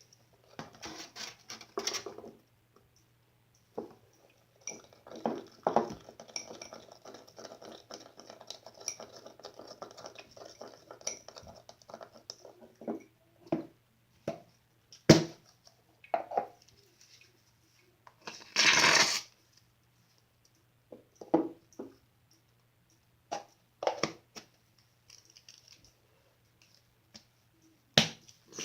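Glossy slime being squished and poked by hand: scattered wet clicks and pops, a stretch of fine crackling a few seconds in, and one short, louder rushing noise about two-thirds of the way through.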